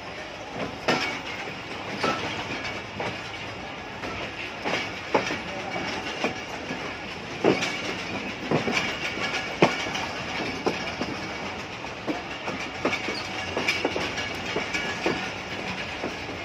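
Passenger train coach wheels rolling over the track, clattering with irregular sharp knocks over rail joints and pointwork, over a steady rumble of running noise.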